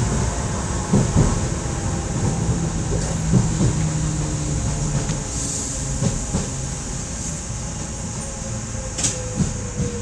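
Docklands Light Railway train running along the track, heard from inside the front car: a steady rumble with a faint whine, and a few short knocks from the wheels over rail joints. The whine sinks slightly in pitch near the end.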